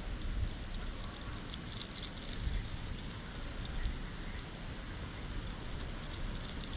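Metal spatula scraping and ticking lightly against concrete as it smooths a bead of crack sealant, over a steady low outdoor rumble of wind or distant traffic.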